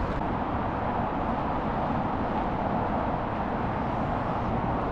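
Steady rush of highway traffic on the roadside pull-off, an even noise with no single car standing out.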